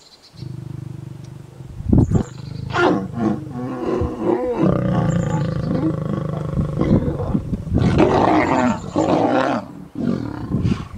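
Lions growling while mating: a low rumble at first, then from about two seconds in loud snarls and growls that shift in pitch, building into one long snarl that breaks off near the end as the male dismounts the lioness.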